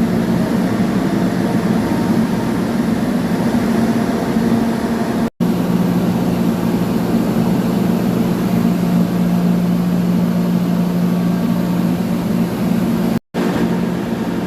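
Steady drone of running industrial machinery, with a constant low hum. The sound cuts out abruptly twice, for a split second each time.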